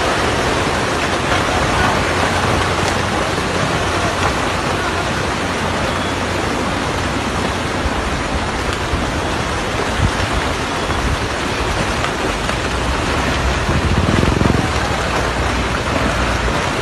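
Landslide: rocks and soil pouring down a hillside in a continuous rushing noise, with a heavier thump about ten seconds in and a louder surge around fourteen seconds.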